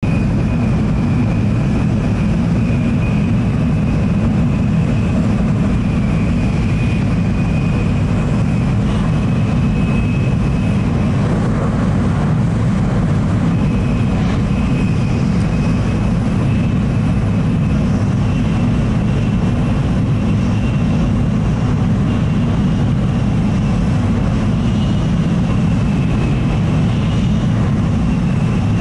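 Shinkansen bullet train running at speed, heard from inside the passenger cabin: a steady deep rumble with a faint high whine that wavers slightly and briefly drops out near the middle.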